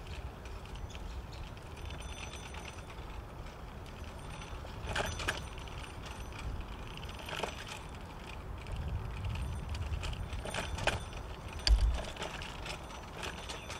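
Shared bicycle being ridden along a paved path: a steady low rumble of tyres and wind, with several light metallic rattles and a louder thump near the end.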